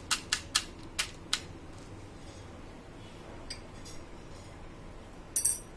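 Crisp fried kachori shell cracking as fingers break open its top: a quick run of sharp crackles in the first second and a half, the sound of a very crisp, flaky shell. A short, louder sharp noise comes near the end.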